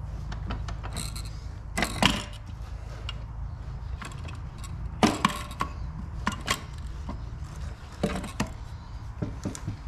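Scattered metal clinks and knocks as a 727 TorqueFlite's aluminium valve body is set down into the transmission case and worked over the shift lever to seat it, over a steady low hum.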